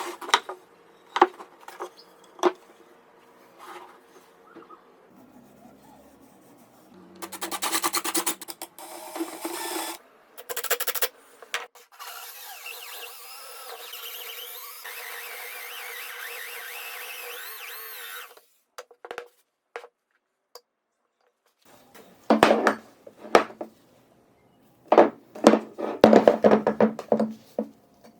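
Woodworking sounds: scattered knocks and clicks, then a spell of rapid rubbing or rasping strokes, a steady hiss lasting several seconds, and near the end repeated back-and-forth rubbing strokes on wood.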